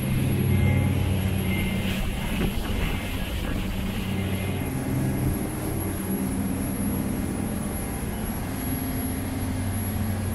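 Diesel engines of a motor yacht running steadily at cruising speed, a low drone under the rush of wake water and wind. The rushing noise is stronger for the first four seconds or so, then eases.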